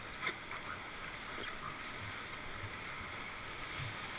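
Steady rush of whitewater rapids around a raft, with a few short knocks and splashes in the first second and a half.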